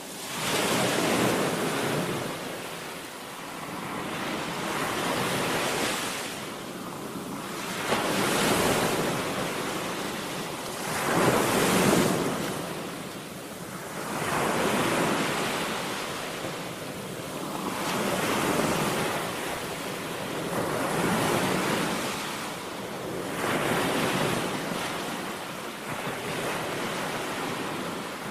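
Waves breaking and washing on a Lake Superior shoreline, a rushing surge that swells and fades about every three seconds.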